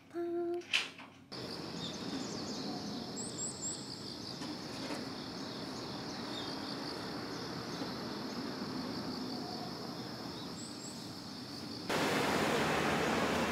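Outdoor ambience: a steady high-pitched insect drone with a few short bird chirps, giving way about twelve seconds in to louder street traffic noise.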